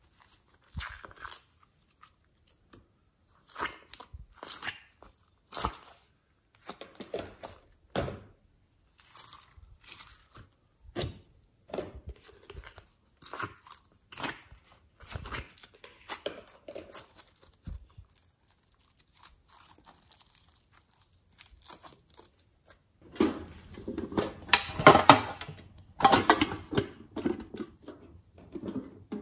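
Soft slime being handled and peeled out of a clear plastic container: scattered sticky clicks, pops and tearing crackles, then a denser, louder run of crackling a few seconds before the end.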